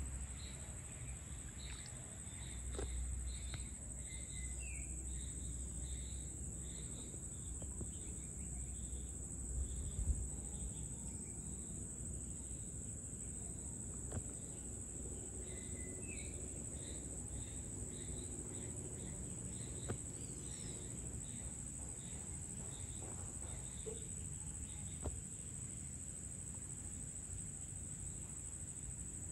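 Steady, high-pitched drone of insects, with rows of short repeated chirps and a brief rising bird call twice.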